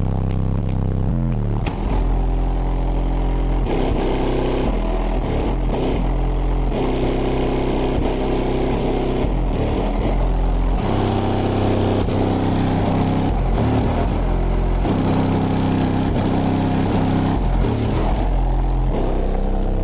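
Bass-heavy song played loud through a car audio system of four JVC 12-inch subwoofers on a 3000-watt Planet Audio amplifier, with deep bass notes changing every second or so.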